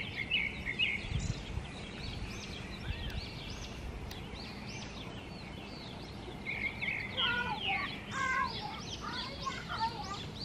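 Wild songbirds singing and chirping: short, high arching notes throughout, with a busier run of quick chirps about seven to nine seconds in. A brief low rumble about a second in.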